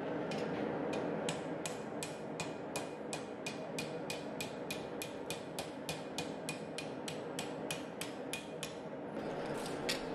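Hand hammer striking a red-hot mild steel bar on the anvil, at about three blows a second, bending the arm of a forged hook over the horn; each blow rings briefly. A steady rushing noise runs underneath.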